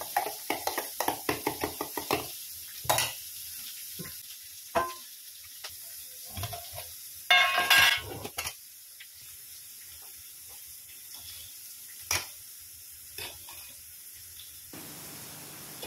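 A metal spoon clinks rapidly against a small stainless-steel bowl while stirring, then steel kitchen vessels give scattered clinks and knocks, with a louder scraping clatter about seven seconds in. A faint sizzle of onions frying in a kadai runs underneath.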